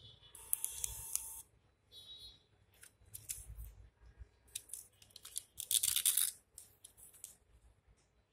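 Canteen terminal's built-in receipt printer whirring briefly as it prints a food coupon about half a second in, then paper rustling and the coupon slip torn off across the printer's tear edge about six seconds in, the loudest sound.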